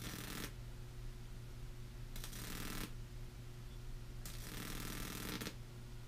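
Microwave-oven transformer humming steadily while its voltage-doubler output arcs across a small gap, a buzzing crackle in three bursts: at the start, briefly about two seconds in, and for about a second from four seconds in.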